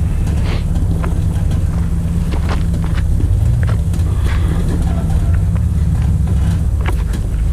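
Off-road vehicle engine running low and steady while crawling on a rock trail, with scattered clicks and knocks over it.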